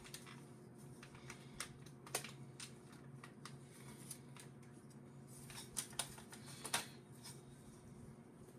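Irregular light clicks and taps of hard plastic action-figure parts and packaging being handled, a few sharper clacks in the second half, over a faint steady hum.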